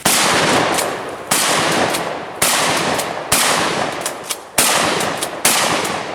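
Six gunshots about a second apart, each followed by a long echo that fades until the next shot.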